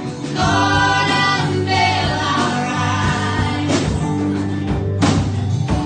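Contemporary worship song performed live by a band: voices singing over sustained bass and instrumental accompaniment, with a few sharp percussive strikes in the second half.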